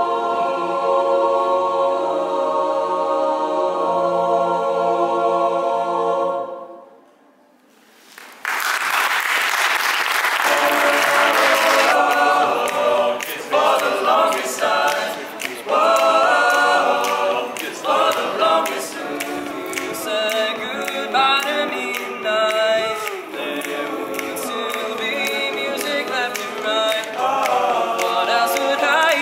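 A mixed choir sings held chords a cappella and fades out about six seconds in. After a short hush there are a few seconds of applause. Then a group of young men sings a cappella, with sharp clicks running through the singing.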